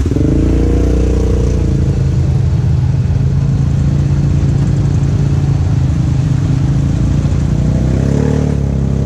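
Off-road vehicle engine running steadily under throttle while riding. Its pitch eases down over the first second or two, then holds, rising slightly near the end.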